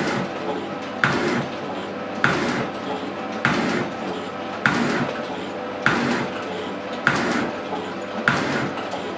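Elliot shaping machine cutting a cast iron block, its ram stroking about once every 1.2 seconds: each stroke opens with a sharp knock, then the scrape of the tool across the iron, over the steady hum of the machine.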